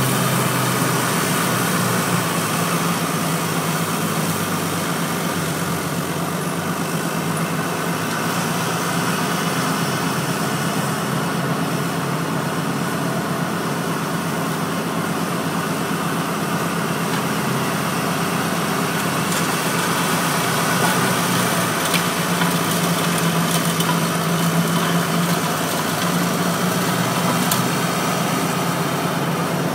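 Valtra tractor's diesel engine running steadily while it drives a rear-mounted Seppi mulcher, a continuous mechanical drone with a few faint ticks of debris.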